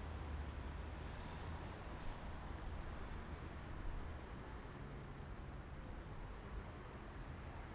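Steady low rumble of road and engine noise from a car driving slowly, heard from inside the car.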